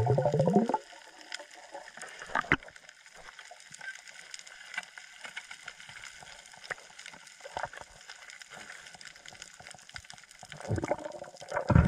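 Background music ending in the first second, then faint water sounds: light gurgling and lapping with scattered small clicks, and a louder low burst near the end.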